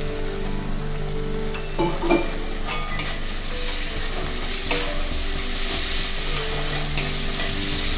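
Spiced onion-tomato masala sizzling in an aluminium kadai as a little water is poured in. A long-handled metal spatula then stirs and scrapes it, clicking against the pan from about two and a half seconds in.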